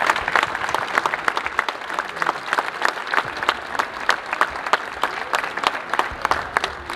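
A crowd applauding: many hands clapping steadily and densely.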